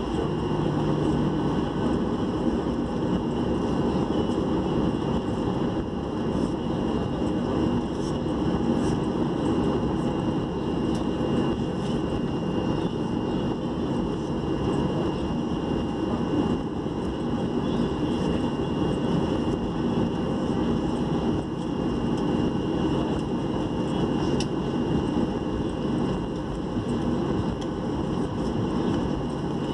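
Jet airliner's engines running steadily, heard from inside the passenger cabin while the plane taxis: an even low hum with a faint high whine.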